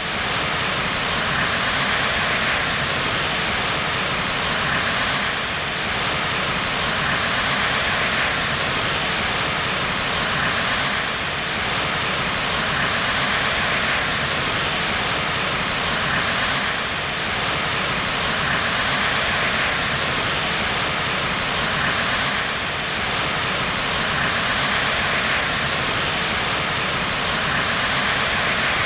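Rushing white water: a steady, unbroken roar of turbulent water with a slight swell and ebb every few seconds.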